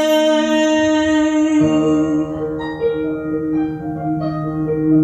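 A male singer holds the final sung note of a ballad over a backing track until about a second and a half in. Then the track's instrumental outro plays sustained keyboard chords.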